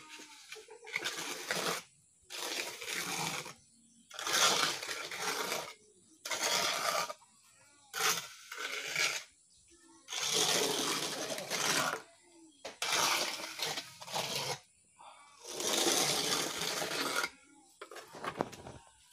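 Mason's trowel scraping across wet cement mortar in long strokes, about nine strokes with short pauses between, smoothing the surface of a freshly cast concrete slab.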